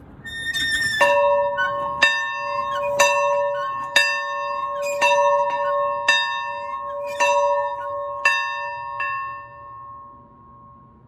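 A church bell ringing, struck about once a second, roughly nine or ten times. After the last stroke its hum lingers and dies away.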